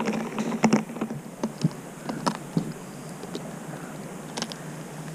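Crumpled paper map being handled and held up, crinkling in a run of irregular sharp crackles over the first few seconds, with one more crackle near the end.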